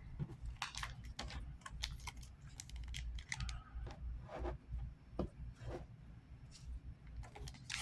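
Trading cards and their foil pack being handled: a stream of soft, irregular clicks and small rustles as the cards are sorted and flicked through.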